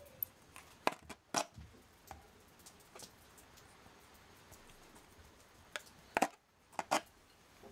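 Scattered light clicks and ticks as a micro drill bit in an aluminium hand pin vise is twisted by hand into the thin wall of a plastic bottle.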